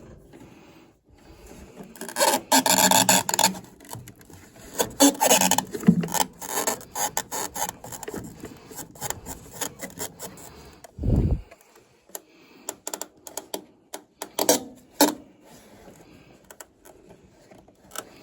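Hand work on furnace parts: scraping and rubbing in two stretches, with scattered clicks and one low thud about eleven seconds in.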